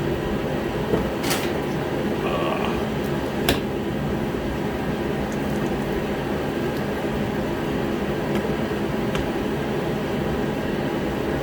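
Steady hum of a running shop heater with its fan, holding an even pitch throughout, with a few light clicks and taps from work on the truck's plastic parts.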